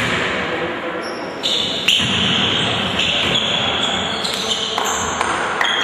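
Basketball game noise in an echoing gym: a ball bouncing on the court over a steady noisy background.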